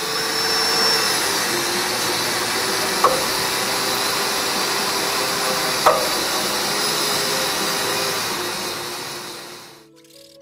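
Angle grinder cutting into the sheet-metal front end of a VW T4 van: a steady motor whine under a loud hiss of the disc on metal, with two sharp clicks about three and six seconds in, dying away near the end.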